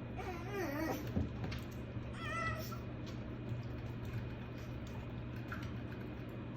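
Japanese Chin puppy whining: a wavering call that falls in pitch in the first second, then a shorter, higher whine about two seconds in.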